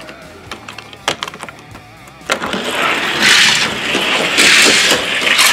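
A few light clicks of die-cast toy cars being set at the starting gate. About two seconds in, a loud rolling rattle begins as two die-cast cars race down a toy track.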